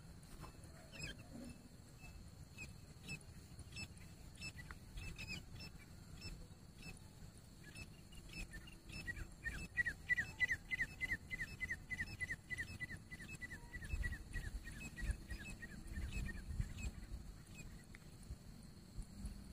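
Grey francolin calling: a few scattered short notes, then from about halfway a long rapid series of short falling notes, about four a second, lasting several seconds before stopping.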